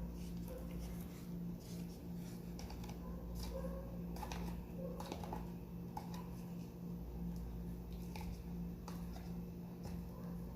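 Slime being kneaded and pulled by hand, making scattered small sticky clicks and squelches, over a steady low hum.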